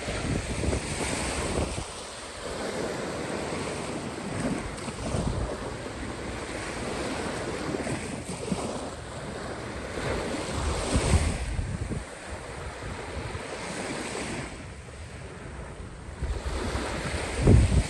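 Caspian Sea waves breaking and washing ashore in slow, rising and falling swells, with wind buffeting the microphone in low gusts, strongest near the end.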